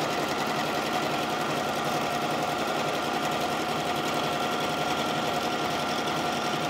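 Red Toyota domestic sewing machine running steadily through a seam: a continuous motor whine with rapid, even needle strokes, not stopping.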